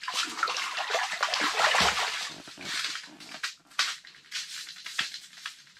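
Water splashing and streaming off a landing net as it is lifted out of an ice-fishing hole with a brook trout in it. It is loudest in the first two seconds or so, then dies down to scattered drips and taps.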